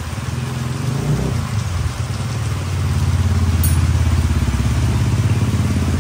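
A motorcycle engine idling with a steady low pulse, growing louder about three seconds in.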